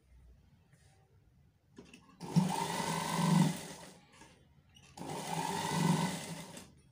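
Electric sewing machine stitching through fabric in two short runs of about a second and a half each. The second run starts about a second after the first stops.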